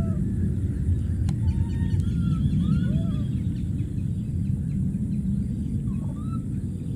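A steady low outdoor rumble, the loudest sound, with about five short rising-and-falling animal calls over it and a run of high bird chirps in the first half.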